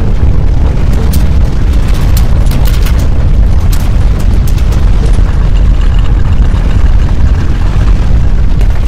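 Earthquake rumble: a loud, continuous deep rumble with scattered sharp cracks and rattles, most of them in the first half.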